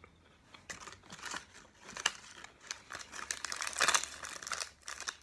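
Kit Kat wrapper crinkling as it is handled, in irregular crackles that are loudest about four seconds in.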